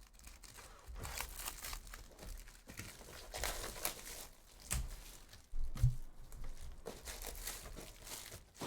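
Foil trading-card pack wrappers being torn open and crumpled in the hands, a steady crinkling and crackling. Two soft thumps come a little past the middle.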